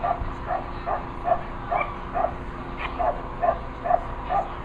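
A dog barking over and over in a steady rhythm, about two barks a second.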